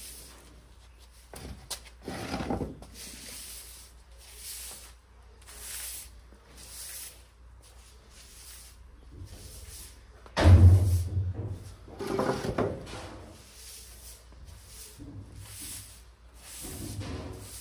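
Straw broom sweeping a concrete floor: a brushing swish about once a second, with one heavy thump about ten seconds in.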